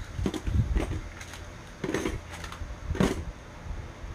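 Plastic Beyblade spinning tops being set down one after another into a clear plastic stadium: a handful of separate clacks and knocks over low handling rumble.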